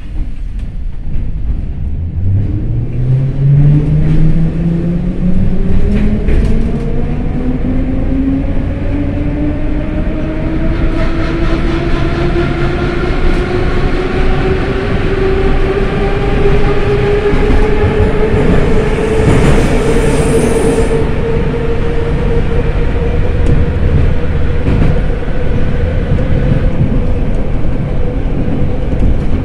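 81-717 metro car's traction motors whining as the train pulls away and accelerates, the pitch rising steadily for about twenty seconds and then holding level, over the rumble and clatter of the wheels on the rails, heard from inside the passenger car. A brief hiss cuts in about two-thirds through.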